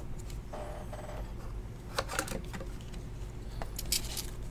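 Clear plastic top-loaders and trading cards being handled: a short soft rustle, then a few light clicks and taps of plastic, over a low steady hum.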